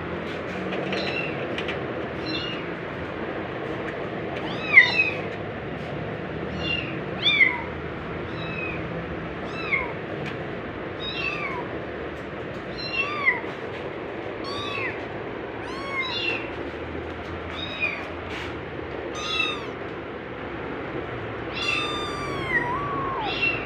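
White kitten meowing over and over, about one short high-pitched call a second, each rising then falling in pitch.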